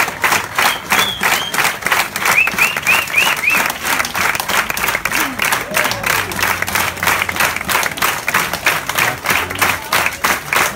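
Concert audience clapping together in a steady beat. A few seconds in, a run of five short high cries rises out of the crowd.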